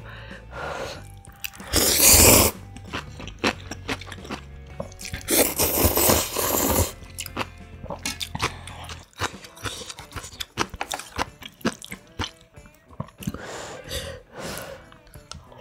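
Close-miked slurping of instant ramyun noodles, with loud slurps about two seconds in and again around six seconds, and a softer one near the end. Wet chewing and small mouth clicks come in between.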